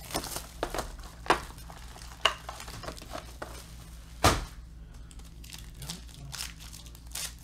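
Foil trading-card pack being handled and torn open, the wrapper crinkling with sharp crackles, and a single thump about four seconds in.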